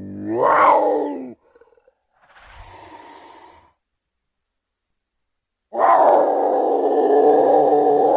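Big cat vocalising: a short roar that cuts off about a second in, a quieter breathy hiss, a pause, then a long, loud growling roar near the end.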